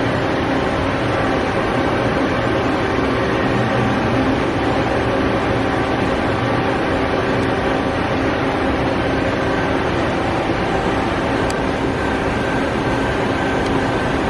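Steady mechanical hum and whir of running machine-shop equipment, with several steady tones in it.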